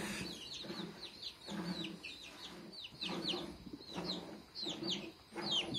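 Mother hen clucking in a steady run of low calls, calling her chicks, while the chicks peep with many short, high, falling chirps.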